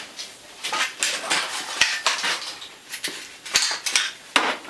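Hard objects clattering and knocking irregularly as someone rummages through stored gear to pull out a sword, with a few sharper knocks standing out.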